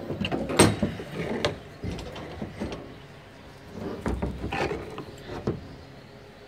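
Metal calf-pen fence panels rattling and clanking as calves push and rub against the bars, in two bouts of quick knocks, the second starting about four seconds in.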